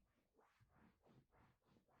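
Near silence, with faint soft noises repeating about three or four times a second.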